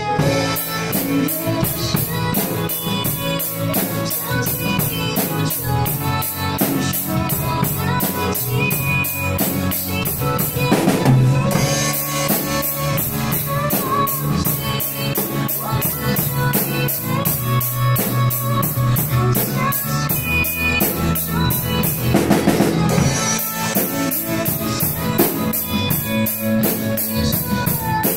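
Acoustic drum kit played with sticks along to a recorded pop-song backing track: steady cymbal strokes with kick and snare under the song's melody, with louder, busier passages about eleven and twenty-two seconds in.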